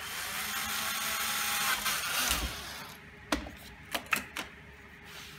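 Cordless drill boring a hole through a thin plastic strip: the motor whines, rising in pitch, for about two and a half seconds, then spins down. A few sharp knocks follow as the drill is set down on the wooden bench and the strip is handled.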